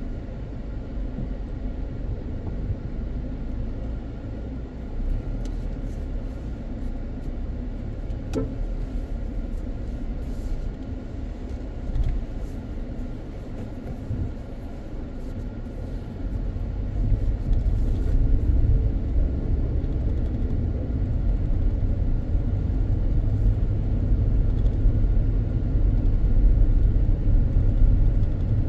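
Car driving along, a steady low rumble of road and engine noise that gets louder a little past halfway through.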